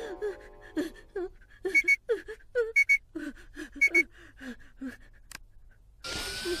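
A cartoon boy's quick, short panting gasps and whimpers, over a heart monitor beeping about once a second. About six seconds in, a hissing machine sound with a rising whine cuts in.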